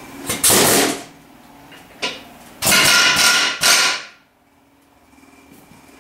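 Pneumatic air hammer with a pointed bit firing in two loud bursts, a short one near the start and a longer one of about a second and a half from about two and a half seconds in, with a sharp click between them. It is driving on the chainsaw crankshaft to split the crankcase halves.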